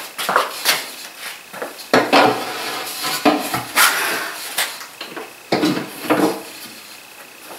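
Wooden boards knocking and scraping as they are handled and set against a workbench. A quick series of sharp knocks is broken by three longer scraping clatters about two, four and six seconds in.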